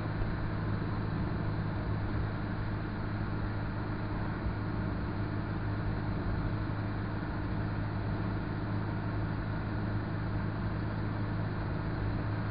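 Moskvich car driving at a steady road speed, heard from inside the cabin: an even engine hum with tyre and road noise.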